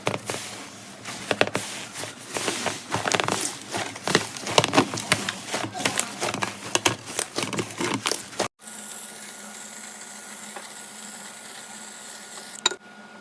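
Slime being pressed and squished by hand, giving a dense run of crackling, popping clicks. After an abrupt cut about eight and a half seconds in, a steadier hiss follows, with one sharp click near the end.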